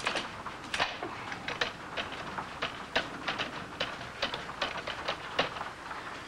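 Irregular sharp clicks from a push-button desk telephone as its buttons and cradle switch are pressed over and over, a few clicks a second at most: the phone line is dead.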